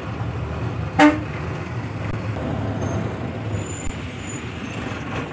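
Bus engine running steadily, heard from inside the moving bus, with one short, loud vehicle horn toot about a second in.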